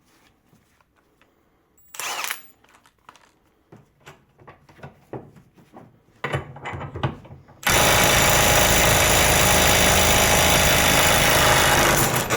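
Handling clicks and knocks, then a cordless 12V impact wrench hammering at full power for about four and a half seconds before it stops abruptly.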